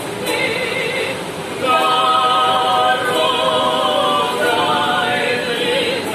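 A small mixed group of men's and women's voices singing together a cappella, holding long notes; the singing grows louder and fuller about two seconds in.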